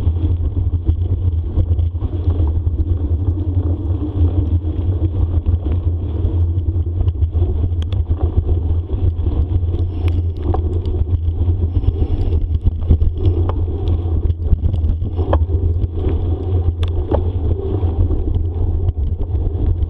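Bicycle rolling fast along a dirt forest trail: a steady low rumble with scattered clicks and rattles from bumps.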